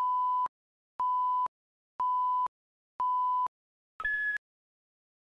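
Electronic beep tone from a video countdown leader: four half-second beeps of one steady pitch, once a second, then a single shorter, higher-pitched beep about four seconds in.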